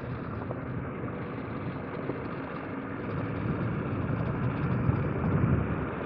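KTM 890 Adventure R's parallel-twin engine running under way on gravel, mixed with tyre and wind noise, getting a little louder in the second half.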